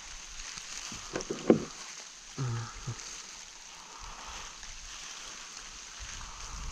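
Steady hiss of water around a kayak, with a sharp click about a second and a half in and two short murmured vocal sounds in the first three seconds.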